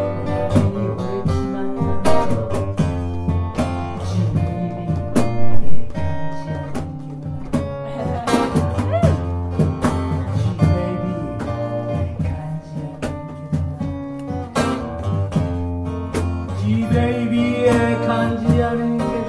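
Acoustic guitar playing a bluesy swing tune, with percussion keeping time.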